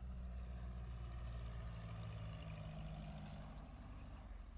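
Single-engine propeller light aircraft flying low past on its landing approach: a steady engine-and-propeller drone that drops a little in pitch as it goes by.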